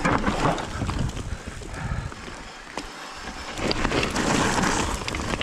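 Mountain bike descending a steep, bone-dry dirt trail: tyres rolling and skidding over loose dry dirt, with scattered clicks and rattles from the bike and wind buffeting the microphone. It eases off a little past the middle and picks up again near the end.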